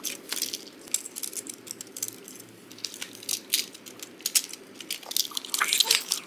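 Hard plastic parts of an Optimus Prime Transformers figure and its orange armour pieces clicking and rattling as they are handled and fitted together, the clicks coming thicker after about five seconds.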